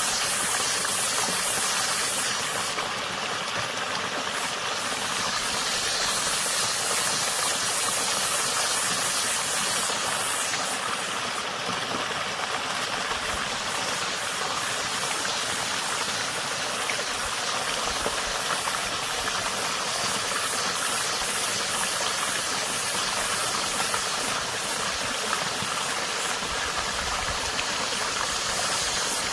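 Water running steadily over stones in a small stream, a continuous rushing and babbling.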